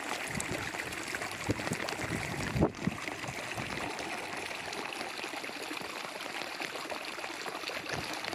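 Rainwater running down a flooded, stony footpath like a small stream, a steady trickle, with one brief thump about two and a half seconds in.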